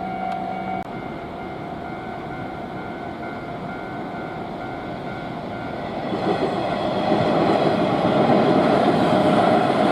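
A Japanese level crossing's electronic warning bell rings in a repeating on-off pattern while an electric train approaches. From about six seconds in the train's running and wheel noise grows loud and stays loud as it passes over the crossing. A steady tone cuts off about a second in.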